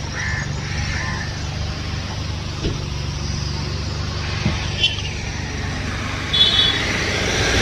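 A motor vehicle's engine running steadily, a low hum, with a few small clicks and a brief high chirp about six and a half seconds in.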